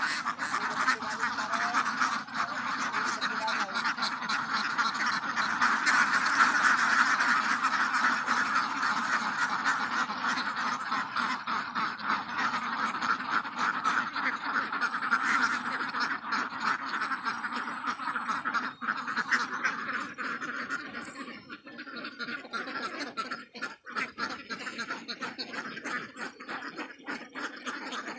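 A large flock of domestic ducks quacking all at once in a dense, continuous din, loudest a few seconds in. After about twenty seconds it thins out into scattered separate quacks.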